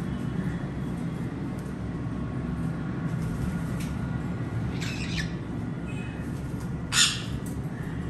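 Pet parrot giving two short, harsh squawks, about five seconds in and again near seven seconds, the second louder, over a steady low background rumble.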